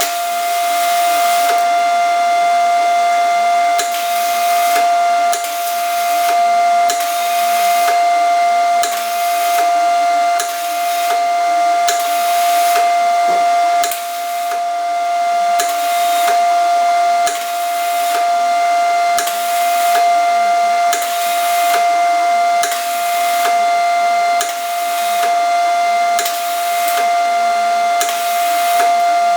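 Angle grinder running with a steady high whine, with a harsher hiss each time the disc is worked against the steel, in repeated passes about every second and a half.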